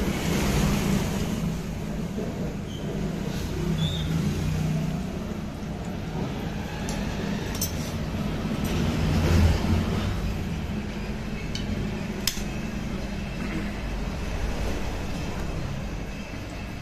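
Steady low rumble of background traffic, with a few sharp metallic clinks of tools on engine parts, the clearest about halfway through.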